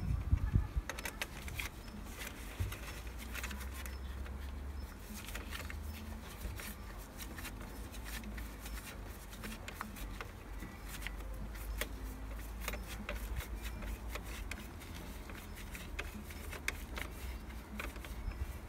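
Scattered light clicks and taps of hands and small tools working at a car's 12-volt battery and its mount, over a low steady rumble.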